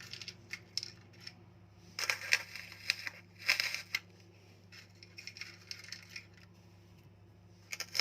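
Hands handling toothpicks and a small container: short bursts of light clicks and rustles about two and three and a half seconds in, softer ones later, over a steady low hum.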